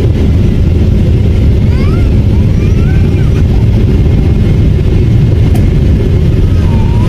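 Steady, loud rumble of a Boeing 777's engines and airflow heard from inside the passenger cabin, with faint voices over it.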